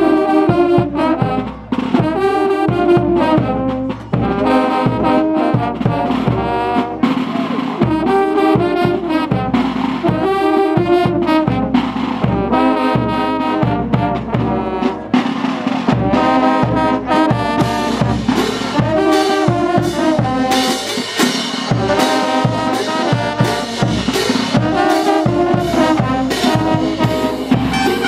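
Brass band playing a melody in repeated phrases, with drums keeping a steady beat.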